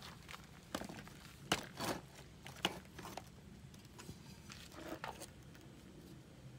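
A handful of light knocks and clatters of a cordless drill and small parts being handled and set down on a wooden workbench, the sharpest about a second and a half in.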